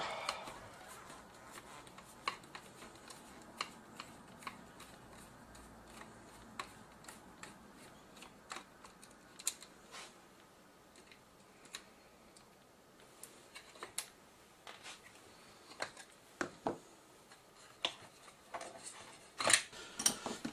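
Faint, irregular light clicks and ticks of a small screwdriver working screws on a camcorder's metal connector panel, with a few louder clicks near the end.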